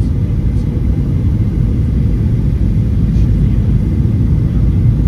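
Steady low rumble inside the cabin of a Boeing 737-800 with CFM56-7B engines, with a few faint clicks.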